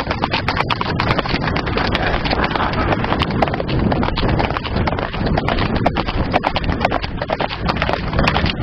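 Hooves of two ridden horses clip-clopping on a track, over a steady rush of noise.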